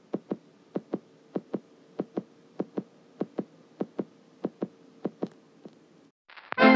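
Soft low thumps in pairs, about one pair every 0.6 seconds, over a faint steady hum; they stop near the end.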